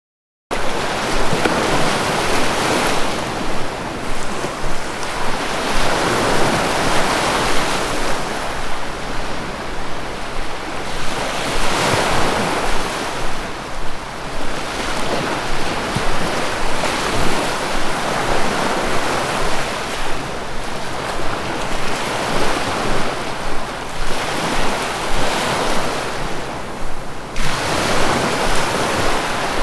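Sea waves breaking and washing ashore, a continuous loud surf that swells and recedes in surges every several seconds. It starts abruptly out of silence about half a second in.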